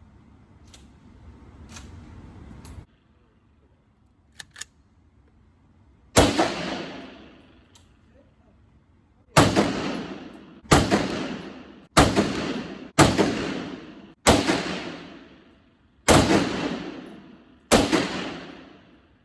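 Eight rifle shots from an Aero Precision AR-15 being fired to sight in its scope, spaced roughly one to two seconds apart and starting about six seconds in, each followed by a long echoing decay. A few light clicks of handling come before the first shot.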